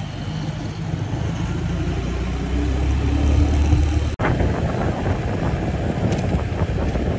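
A motor vehicle's engine running with a steady low rumble, heavier for a second or so in the middle. The sound drops out for an instant about four seconds in.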